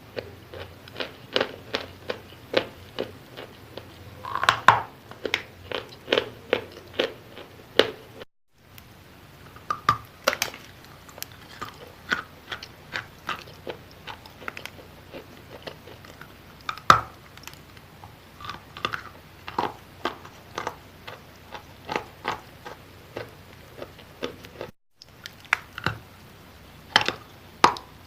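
Close-up chewing of wet chalk: a steady run of soft, moist crunches and clicks, about two to three a second. It breaks off twice in brief silent gaps.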